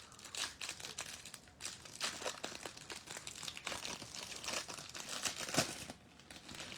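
Plastic wrapper of a trading-card pack being torn open and crumpled, an irregular crinkling and rustling with a louder crackle near the end.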